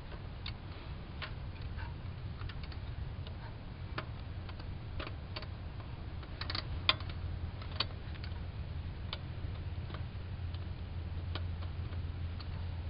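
Irregular small metallic clicks and taps as a hand works parts around the turbo's oil-feed banjo bolt behind the exhaust manifold, with one sharper click about 7 seconds in. A steady low hum runs underneath.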